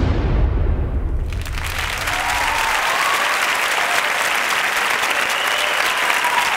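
The last low bass of the dance track dies away, and about a second in an audience starts clapping, a steady, dense applause that carries on.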